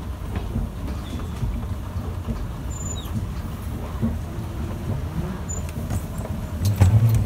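Steady low rumble of a moving escalator. About 6.7 s in, as the ride ends, a louder rumble begins: a wheeled suitcase rolling off onto the hard terminal floor.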